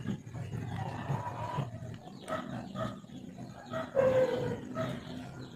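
A few short animal calls, the strongest about four seconds in, over a steady low rumble.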